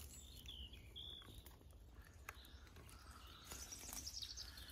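Near-quiet forest ambience: a couple of faint bird chirps about half a second and a second in, and faint crackling rustle toward the end.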